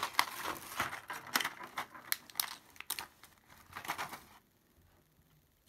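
Thin clear plastic blister tray crinkling and clicking as tiny plastic toy pieces are pressed out of it by hand, stopping about four and a half seconds in.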